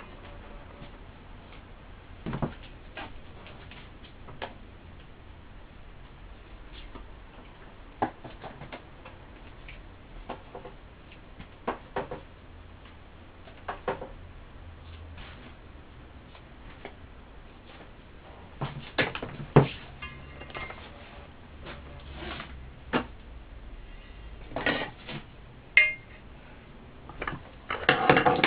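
Scattered clicks, taps and clinks of hands and a tool working around a loudspeaker woofer's frame and surround, coming irregularly every second or few, with a busier cluster about two-thirds of the way through and again at the end.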